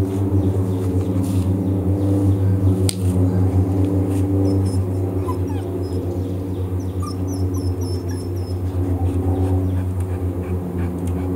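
St Bernard puppy whimpering over a steady low hum, with a run of short high chirps in the middle.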